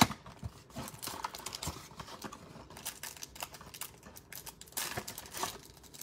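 A cardboard hanger box of trading cards being opened by hand: the flap is bent and pulled open, then the stack of cards slides out. It comes as a run of small clicks, creases and rustles.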